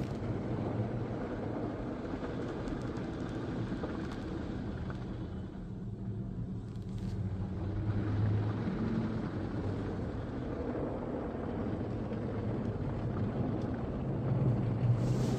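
Automatic car wash heard from inside the car's cabin during the foam stage: a steady low hum of machinery with a rush of spray, thinning briefly about six seconds in.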